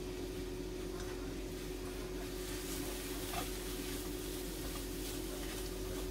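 Sauce sizzling in a nonstick frying pan while dried fish strips (myeongyeopchae) are tossed through it with chopsticks, the sizzle and stirring growing louder from about two seconds in. A steady hum runs underneath.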